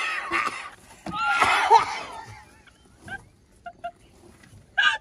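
Hard laughter in two loud bursts over the first two seconds, then short, fainter laughs, with another loud laugh breaking out at the end.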